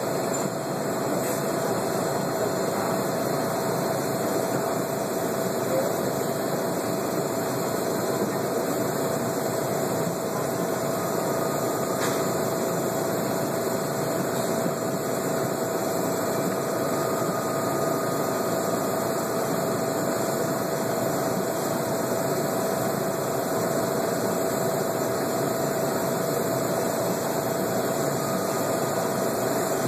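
Steady machinery hum and hiss with a faint steady tone running through it, unchanging throughout, and one faint click about twelve seconds in.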